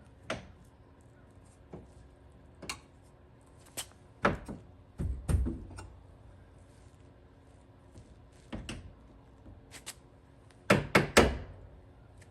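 Scattered sharp clicks and knocks, with a few heavier thunks about four to five seconds in and three loud clicks in quick succession near the end. They come from new liftgate gas struts being handled and snapped onto their ball-stud mounts.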